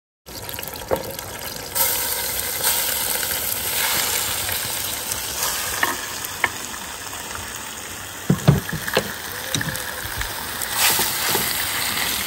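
Raw beef strips sizzling in hot oil in a clay pan over a wood fire; the sizzle gets louder about two seconds in. A few knocks of the knife and wooden spoon against the pan come about two-thirds through.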